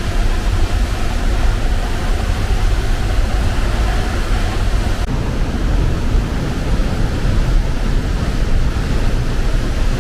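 Steady rushing roar of a large waterfall close by, with gusts of wind buffeting the microphone in a heavy low rumble.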